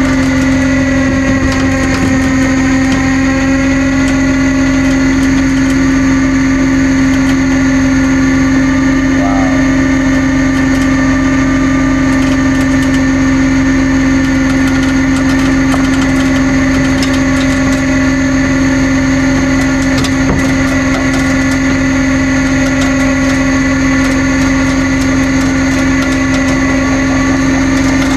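Tow truck's engine and hydraulic winch running steadily under load while winching a car up out of a ditch, the pitch settling slightly in the first couple of seconds and then holding even.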